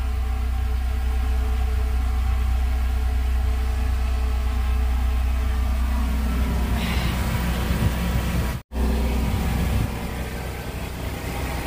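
Steady low mechanical hum, with rustling and handling noise from about six seconds in and a brief dropout near nine seconds.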